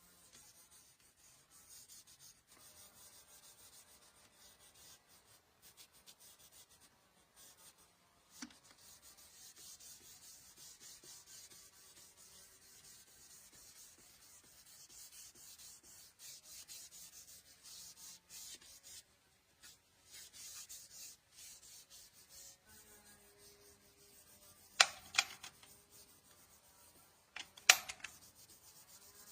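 Faint hand rubbing over the wood of a black walnut jewelry box, an uneven run of short strokes, as in hand sanding or polishing. Near the end come two loud, sharp double knocks about three seconds apart.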